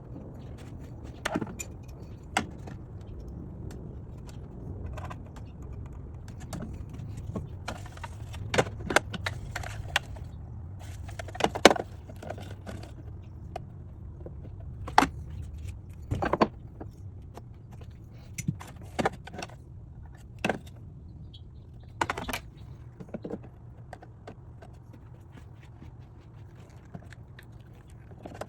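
Plastic and metal parts being handled and fitted by hand: irregular clicks, taps and small rattles, a few louder knocks among them, over a steady low hum.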